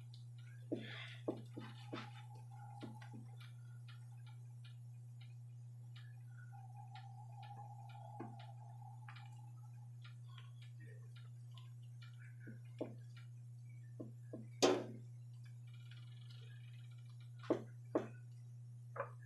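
Small, irregular clicks and taps from a homemade dish-soap-and-flour dough being mixed and worked by hand, with a few louder knocks, over a steady low electrical hum.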